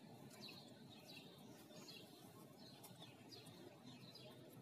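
Faint birds chirping: short falling chirps, about two a second.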